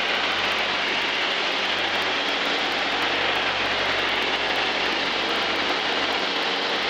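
Steady drone of a light aircraft's piston engine and propeller in cruise, heard from inside the cockpit over a strong, even rush of airflow.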